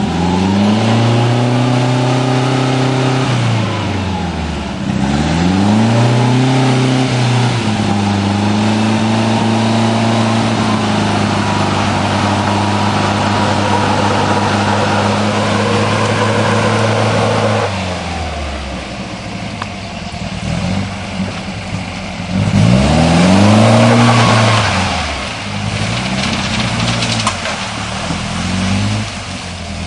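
Off-road vehicle's engine revving up and easing off several times, then held at steady high revs for about ten seconds before dropping back, followed by several more short revs near the end.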